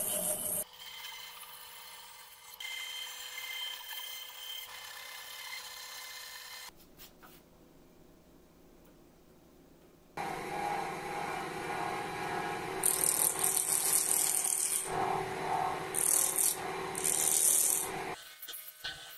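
A band saw running as it cuts a small glued-up wooden block. Then a wood lathe spinning a wooden blank while a turning gouge cuts it, with several louder bursts of scraping near the end.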